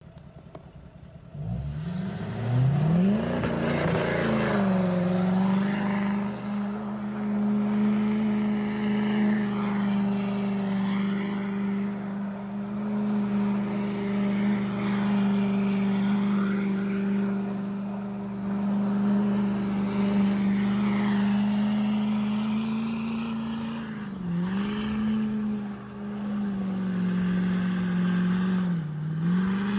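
Duramax V8 turbo-diesel in a late-model GMC Sierra HD pickup revving up about a second and a half in, then held steady at high revs while the tyres spin on snow. The revs dip briefly twice near the end.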